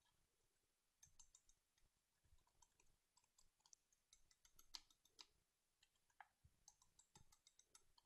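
Wire whisk clicking faintly and irregularly against the sides of a measuring jug while beating chocolate cake batter, starting about a second in.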